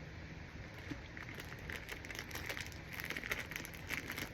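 Plastic snack wrapper crinkling as it is handled, a run of irregular crackles starting about a second in.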